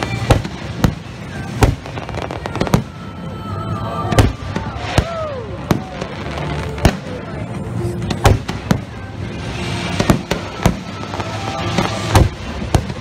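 Aerial fireworks shells bursting: about a dozen sharp, loud bangs at irregular intervals over a continuous crackling din.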